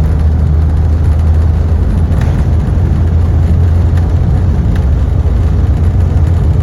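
Cabin noise of an Embraer regional jet at takeoff power just after liftoff: a loud, steady low rumble of the jet engines and airflow, with a hiss above it.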